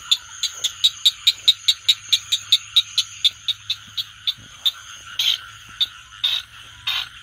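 Frogs calling: a fast, even run of clicking calls, about four or five a second, that thins out after about four seconds into a few longer, louder croaks near the end, over a steady background chorus.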